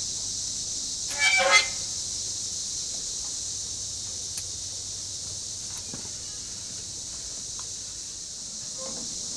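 Steady high-pitched chorus of evening insects, with one short, loud horn-like toot about a second in.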